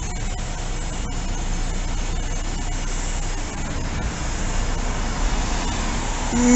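Volvo bus with a Volgren Optimus body driving slowly past, its engine and tyres giving a steady low rumble, with a car passing close by near the end.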